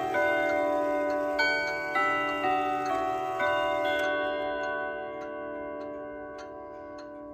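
Steel chime rods of a 1933 Junghans/HAC chiming wall clock striking the last few notes of a chime melody, then ringing out and slowly fading. The movement ticks steadily, a little under twice a second, under the fading tones.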